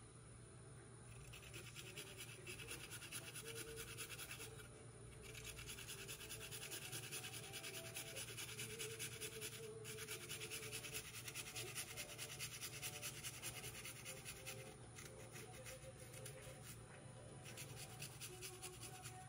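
A garlic clove being grated on a small handheld metal grater: quick repeated scraping strokes, with a couple of short pauses and lighter strokes near the end.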